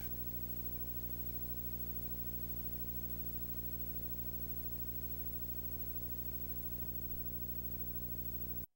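Steady electrical hum with a buzzy stack of overtones and faint hiss: the noise floor of an analog videotape transfer playing no programme. It cuts off suddenly near the end.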